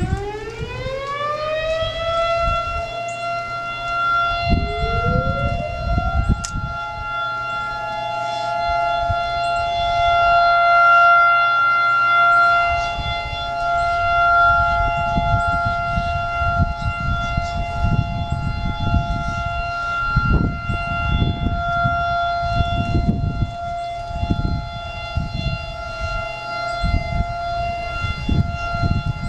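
Civil-defense tsunami warning sirens sounding the monthly test signal. One siren winds up to a steady high tone in the first two seconds. A second, slightly higher-pitched siren winds up about four to six seconds in, and then both hold their steady tones together.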